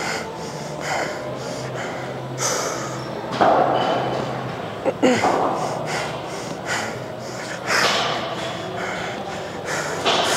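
A lifter's forceful breathing under a heavy dumbbell bench press, with a sharp, noisy exhale roughly every one to two seconds as each rep is pushed up. A steady low hum runs underneath.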